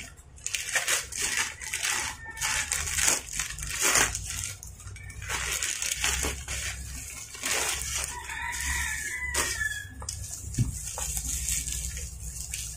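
Plastic shipping pouch being crinkled and pulled open by hand, a run of irregular crackles and rustles. A chicken calls in the background about eight seconds in.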